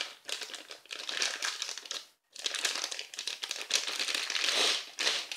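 Clear plastic bag crinkling as hands unwrap a small plastic flash stand from it, a run of crackles with a brief pause about two seconds in.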